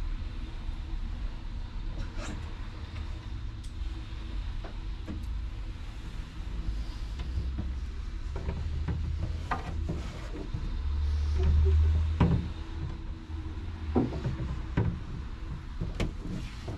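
Low rumble of street traffic, swelling as a vehicle passes about eleven to twelve seconds in. Scattered light knocks and rustles from someone moving about on the floor sit on top.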